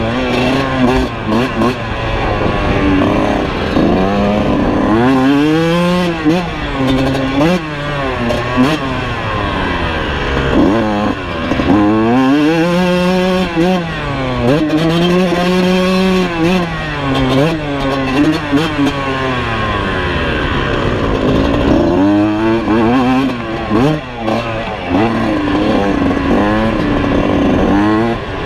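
Kawasaki KX125 two-stroke single-cylinder engine ridden hard around a motocross track, its pitch repeatedly rising and falling as the throttle is opened and closed.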